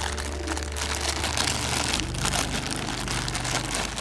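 Thin clear plastic wrapping crinkling and crackling as hands pull and handle it, with a low steady hum underneath.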